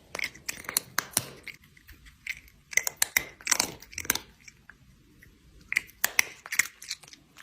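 Crunchy chewing: several short bouts of quick crunches and clicks with brief pauses between them.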